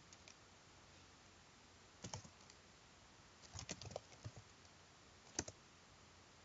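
Computer keyboard typing in a few scattered keystrokes: a pair about two seconds in, a quick run of several between about three and a half and four and a half seconds, and one sharper keystroke at about five and a half seconds, over a faint hiss.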